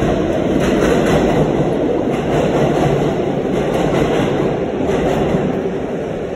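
Subway train on the 7 line running in the station: a loud, steady rumble with some clatter of wheels on rail, easing slightly near the end.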